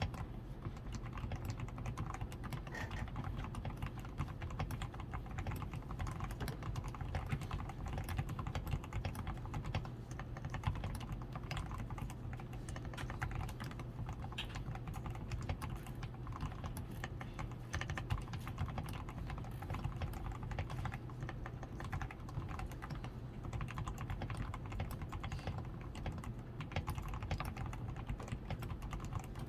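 Continuous fast typing on a DAREU A87 Pro mechanical keyboard, fully lubed with a PCB tape mod, added switch foam, XDA keycaps and lubed stabilizers: a steady stream of key clacks.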